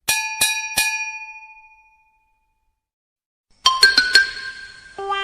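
A bell-like chime struck three times in quick succession, the ringing fading out over about a second. After a pause, a short sparkly cluster of clicks and chime tones starts near the end.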